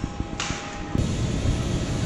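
Steady airliner cabin noise inside a Boeing 737-800, with a short hiss a little before the middle. About a second in, it switches abruptly to a louder, steadier rumble.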